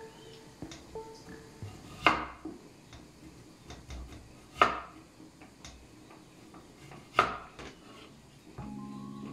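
Kitchen knife slicing through a peeled potato on a wooden cutting board: three sharp knocks of the blade on the board, about two and a half seconds apart. A steady hum comes in near the end.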